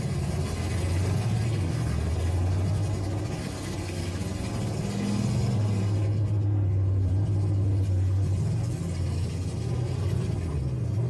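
Engines of demolition-derby pickup trucks running: a continuous low rumble that rises and falls in pitch as they rev.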